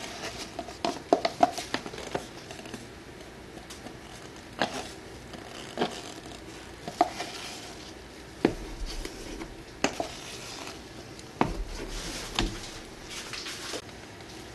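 Wooden craft stick stirring paint in a plastic cup and knocking against its side: a quick run of taps in the first two seconds, then single knocks about every second or so.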